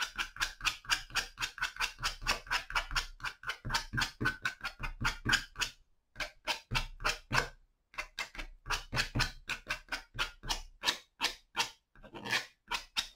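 Metal palette knife scratching quick short strokes through wet watercolour paint on paper, about four or five a second, pausing briefly around six and eight seconds in.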